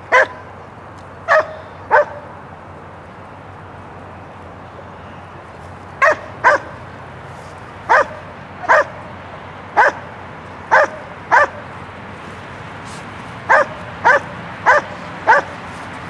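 A dog barking: about fourteen short, sharp barks at uneven intervals, several in quick pairs, with a pause of about four seconds after the first three.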